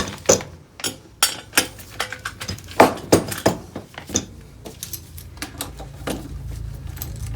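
Metal motorcycle fork parts and tools knocking and clinking on a workbench as a triple clamp and fork legs are handled, in a dozen or so irregular sharp knocks, some with a short metallic ring.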